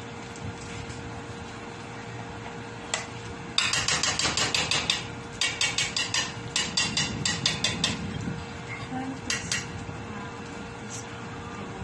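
Rapid metallic tapping in a stainless steel cooking pot, in several quick runs of about eight strokes a second, with pauses between them.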